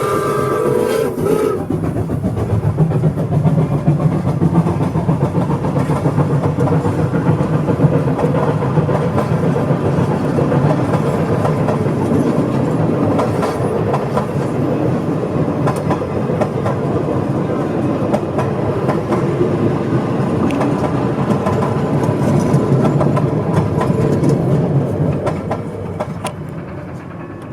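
Pere Marquette 1225, a 2-8-4 Berkshire steam locomotive, passing at speed with its passenger train. The tail of its whistle ends about a second in, followed by the steady rumble and clickety-clack of the wheels over the rail joints, fading away near the end.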